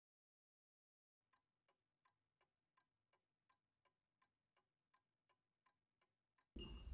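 Faint, even clock ticking, about three ticks a second, starting after a second of silence. Shortly before the end a louder background noise cuts in under it.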